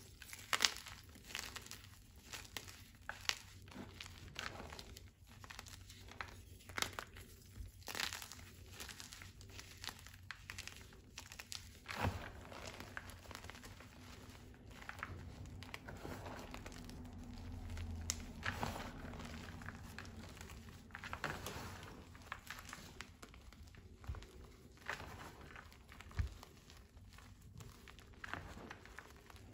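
Hands squeezing and crumbling powdery reformed gym chalk: a steady run of soft, irregular crunches and powdery crackling, with sharper crunches now and then as chunks break.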